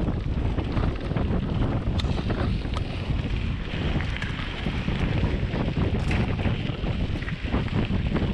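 Wind buffeting a bike-mounted action camera's microphone, with a Scott Spark mountain bike's tyres crunching over a gravel dirt road and the bike rattling with many small clicks.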